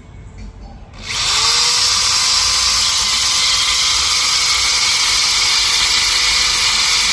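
Power cutting tool starting about a second in, its whine rising quickly and then holding steady at a loud, even pitch as it cuts at a seized wheel hub.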